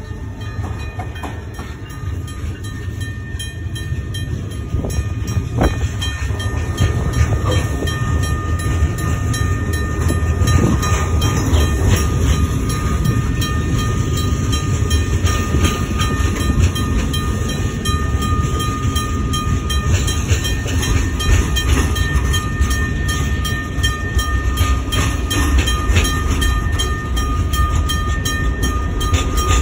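Freight train gondola cars rolling through a grade crossing, their wheels rumbling on the rails. Over the rumble the crossing's US&S teardrop bell rings with evenly repeated strokes.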